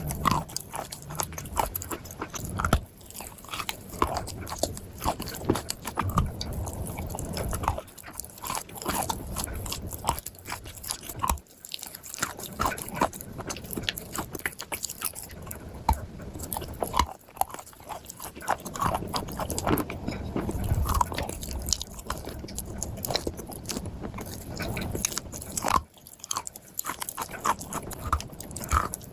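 A person biting and chewing chunks of dry clay, with dense, irregular crunching and crackling that goes on throughout, pausing only briefly now and then.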